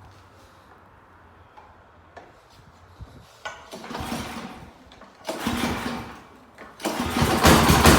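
Snow blower engine being cranked over: a few light clicks, then two short cranking attempts that die away, and on the third the engine catches about seven seconds in and runs steadily. It is a cold start on full choke with the throttle set fast, after the old fuel and oil were drained and the carburetor jet cleaned.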